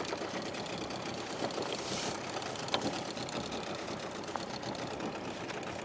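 Small boat motor running steadily at low speed, as for trolling, with a single sharp click a little under three seconds in.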